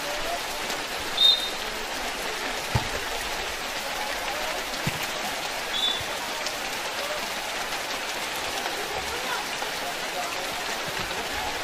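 Heavy rain falling steadily on an open concrete court, with two short blasts of a referee's whistle, the louder about a second in and a fainter one near the middle, and a couple of dull thumps.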